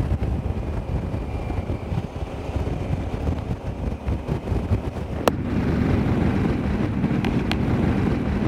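Riding a KTM 990 SMT motorcycle: wind buffets the microphone over the running V-twin engine, whose steady hum comes through more clearly after about five seconds. A sharp click about five seconds in, then two fainter ticks a couple of seconds later.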